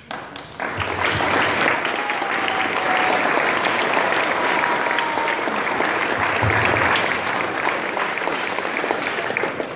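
Audience clapping and applauding, swelling within the first second, holding steady for about nine seconds and dying away at the end.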